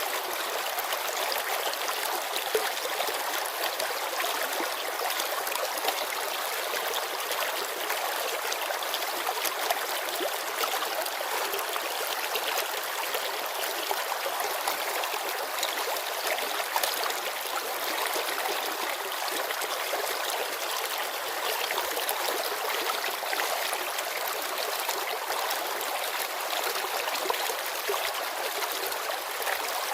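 A shallow mountain river babbling over stones: a steady rush of water with many small splashes and trickles.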